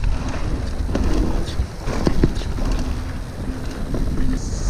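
Wind rumbling on the camera microphone as a Nukeproof Scout hardtail mountain bike rolls down a dirt trail, with scattered knocks and rattles from the bike over rough ground.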